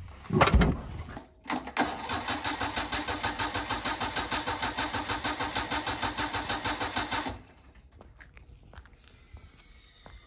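A thump, then a Daihatsu Hijet pickup's engine being cranked by its starter for about five and a half seconds, an even pulsing about eight times a second. The cranking stops suddenly and no running engine follows.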